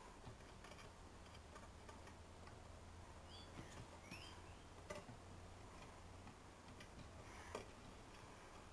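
Near silence: a low steady room hum with faint scattered ticks and light clicks, and a few faint high chirps about three to four seconds in.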